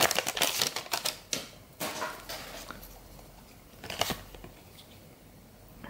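Foil wrapper of a 1991 Upper Deck football card pack crinkling as it is pulled open, followed by scattered clicks and light snaps of the cardboard cards being slid out and handled. The sharpest click comes about four seconds in.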